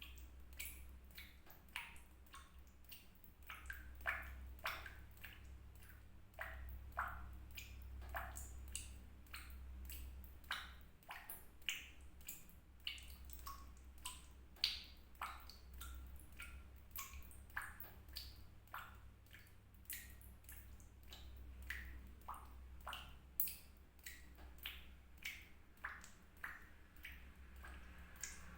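Water drops dripping at an irregular pace, about one to three a second, each a short sharp plink, some with a brief ringing tone. A low steady hum runs underneath.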